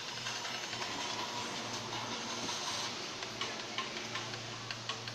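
Small light clicks and taps of tiny metal watch parts and tools being handled while a digital watch's button-cell battery is changed, more frequent in the second half, over a steady hiss and low hum.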